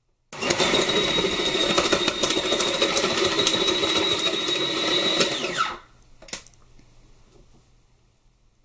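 Electric salad maker's motor switched on, running steadily with a high whine for about five seconds, then switched off and winding down with falling pitch. A few light clicks follow.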